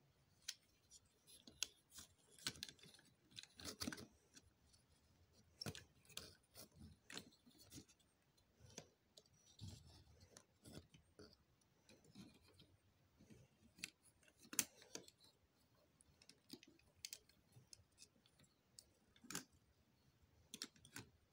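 Hard plastic toy figures clicking and knocking against each other as hands rummage through a cardboard box of toys and handle a plastic robot toy: light, irregular clacks with a few sharper knocks.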